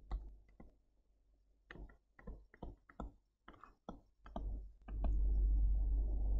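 Irregular light clicks and taps of a stylus on a tablet surface as words are handwritten. About five seconds in, a steady low rumble starts under the taps.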